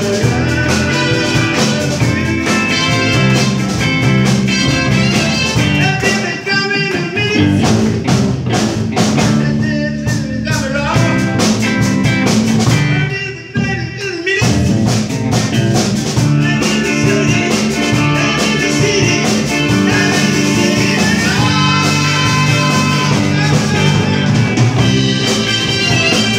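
Live rock band playing: electric guitars, drum kit and keyboard, with a short drop in the music about halfway through.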